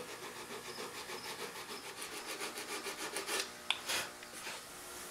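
Coarse 60-grit sandpaper rubbed by hand back and forth on a teak utensil handle in quick, even strokes. The strokes stop about three and a half seconds in, followed by two light ticks.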